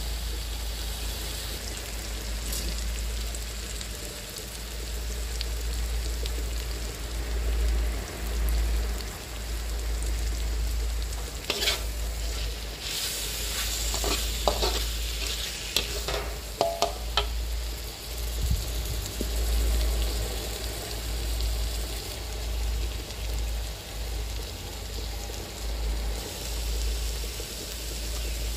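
Tuna chunks in chili sambal frying and sizzling in a wok, with a metal spatula stirring and scraping against the pan, the scrapes bunching up around the middle.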